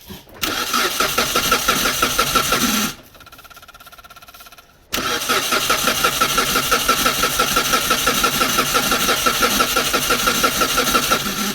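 Mitsubishi Lancer's four-cylinder engine being cranked by its starter with the fuel pump fuse removed, to bleed off fuel pressure. It goes in two long cranks, a short one of about two and a half seconds, then a pause of about two seconds, then a longer one of about six seconds, each an even rapid chugging.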